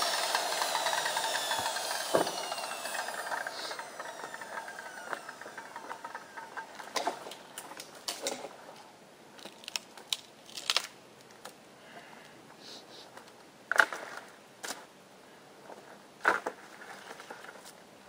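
A power saw's motor winding down after being switched off, its whine falling in pitch and fading over the first few seconds. Then scattered knocks and clatters of wood being handled, with two louder knocks in the second half.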